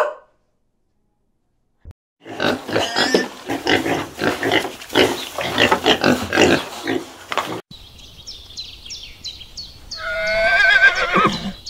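Wild boar grunting over and over for about five seconds. After a sudden cut, quick high chirps repeat, and a horse whinnies with a wavering, shaking call near the end.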